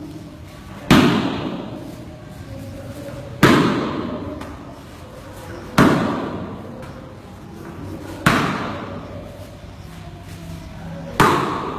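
Five breakfalls (ukemi), each a sharp slam of a body landing on foam tatami mats, about two and a half seconds apart. Each one rings on in a reverberant hall.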